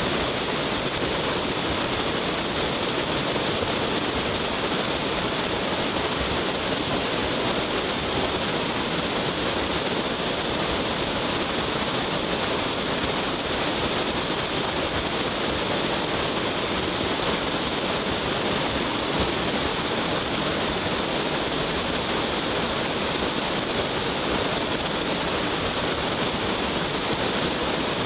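Large waterfall with its flow swollen by rain, a steady, unbroken rushing of falling water.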